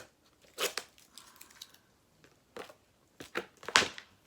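Comic-book packaging being handled: a few short bursts of crinkling and tearing, the loudest near the end.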